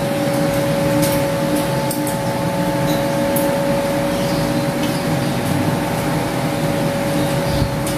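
A steady machine hum holding a few even tones, with a few light clinks of spoons and forks against plates.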